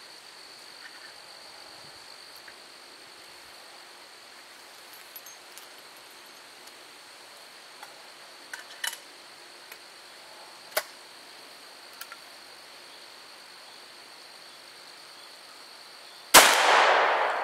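A single .38 Special shot fired from an H&R / New England Firearms 20-gauge single-shot shotgun through a .357/.38 chamber adapter: one sharp, loud report near the end, ringing out for about a second. Before it, insects buzz steadily with a few faint ticks.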